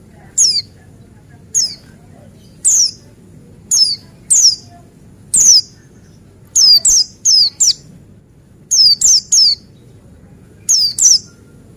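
White-eye ('pleci buxtoni') calling: short, sharp, high notes that each sweep downward, given singly or in quick runs of two or three, about one a second.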